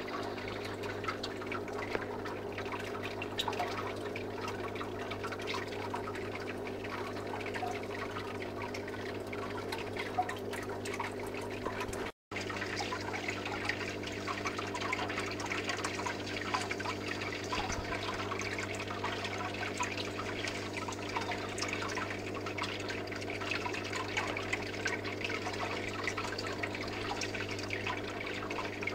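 Aquarium water circulating: a steady electrical hum from the tank's pump with water trickling and bubbling over it. The sound cuts out for a moment about twelve seconds in.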